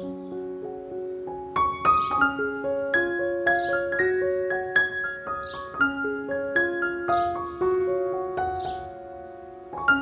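Background piano music: a gentle melody of separate notes, with a soft swish in the music about every one and a half seconds.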